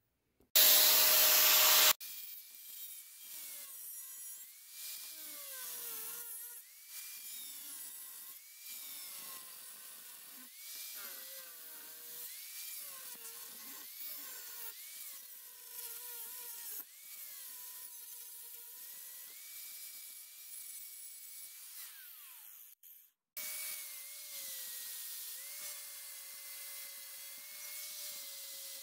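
Electric angle grinder with a thin disc cutting off the end of a wooden axe handle flush with the steel axe head. A loud burst of noise comes first, then the motor's whine dips and recovers in pitch again and again as the disc bites, with a short break a little after twenty seconds and a steadier whine after it.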